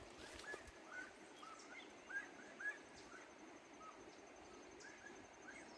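Faint outdoor quiet with small birds chirping now and then: a dozen or so short, thin notes, two of them a little louder a little after two seconds in, over a faint steady high-pitched hum.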